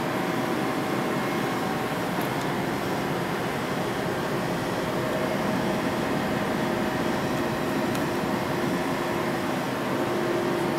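Steady mechanical hum with a faint whine in it, like a cooling fan or compressor running, holding an even level throughout.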